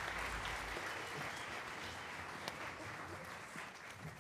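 Audience applauding after a song, the clapping slowly dying away.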